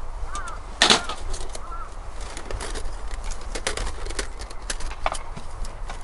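Metal camp cookware being handled on a steel table: a folding stove windscreen and stove parts click and knock, the loudest a sharp knock about a second in. A bird chirps a few short notes.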